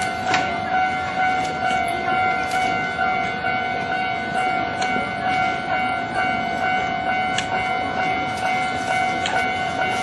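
Japanese level-crossing warning bell ringing its electronic 'kan-kan' chime over and over at an even pace, the signal that a train is approaching and the barriers are closed.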